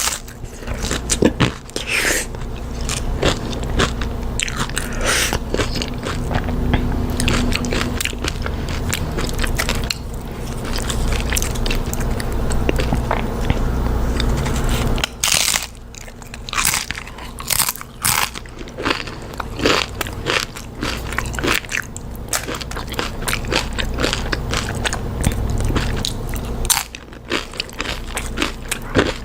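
Close-miked biting and chewing of loaded nachos: crisp tortilla-chip crunches over and over between wetter chewing, over a steady low hum.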